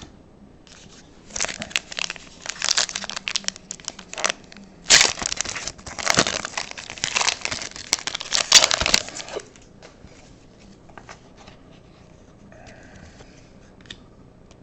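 Plastic or foil card-pack wrapper crinkling and crackling as it is handled, in dense bursts for about eight seconds that stop abruptly.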